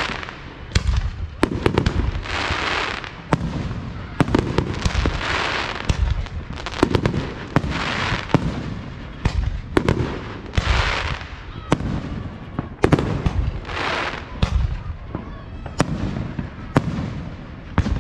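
Aerial fireworks shells bursting one after another, sharp booms coming about every second, with stretches of hiss lasting about a second between the bursts.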